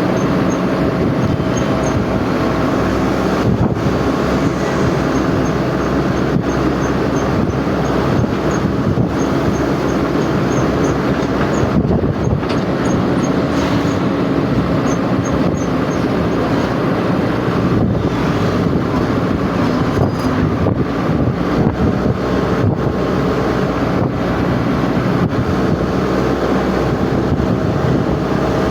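A moving vehicle's steady running noise, a dense low rumble that goes on without a break.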